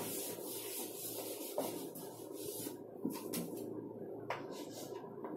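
A chalkboard being wiped clean in repeated rubbing strokes, with a few light knocks against the board.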